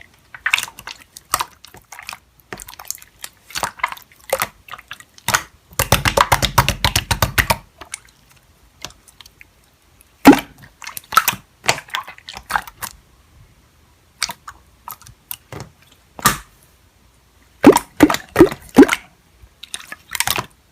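Slime being squished and pressed by hand: irregular sticky clicks and wet pops, with a dense run of rapid crackling about six seconds in and a quick cluster of loud pops near the end.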